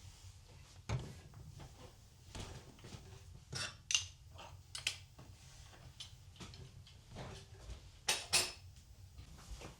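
A series of light household knocks, clicks and clatters, with louder ones about a second in, around four seconds in, and a pair near eight seconds, over a faint low hum.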